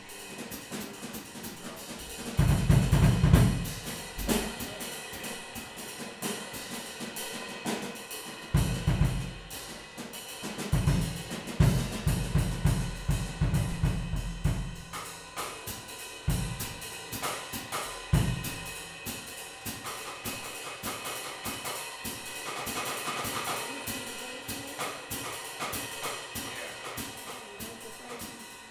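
Live instrumental trio of electric guitar, electric bass and drum kit playing, with busy cymbals and hi-hat throughout. Heavy low hits come in clusters during the first two-thirds, and held guitar notes stand out near the end.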